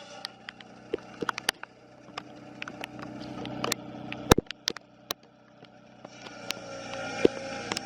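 Lucas portable sawmill's engine running steadily, with scattered sharp clicks and knocks over it. The engine grows louder about six seconds in.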